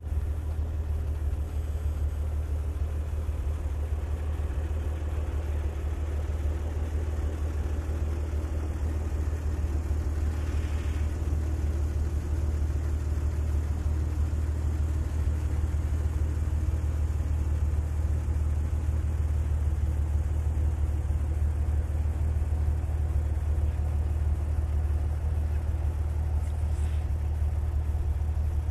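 Vehicle engine idling steadily: a low, even hum that holds at one pitch, with no revving.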